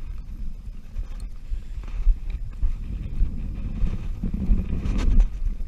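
Wind buffeting the microphone in a low, uneven rumble with thumps, and a few light knocks. A short low hum comes near the end.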